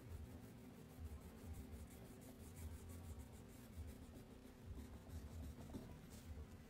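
Crayon rubbed quickly back and forth on paper while colouring in, a faint rapid scratching of strokes. The strokes thin out in the middle and pick up again near the end, over a faint low rumble.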